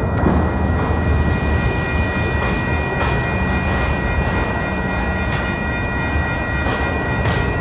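Steady low rumble of a Union Pacific freight train running through a road grade crossing, with the crossing's warning bell giving a steady high ringing tone over it.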